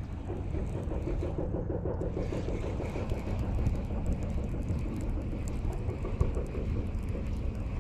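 Shimano Metanium DC baitcasting reel being cranked steadily, winding in line, over a steady low rumble.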